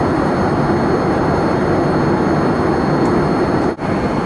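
Steady cabin noise of a Boeing 787-8 Dreamliner in cruise: an even rush of airflow and engine noise. It dips briefly near the end.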